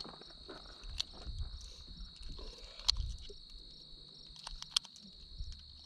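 Insects trilling steadily in a high, even tone, with a few light clicks and soft knocks from gear being handled, the sharpest about three seconds in.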